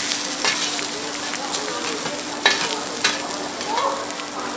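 Potatoes sizzling and frying on a hot griddle, a steady crackling hiss with a few sharp clicks.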